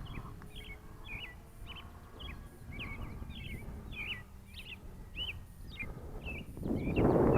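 A bird chirping over and over, short sharp notes about two a second. A loud rush of wind on the microphone comes in near the end.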